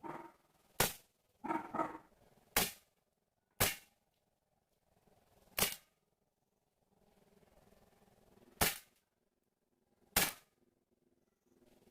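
CO2-powered 4.5 mm air pistol, a Beretta 92 replica, firing six sharp shots at uneven intervals of one to three seconds.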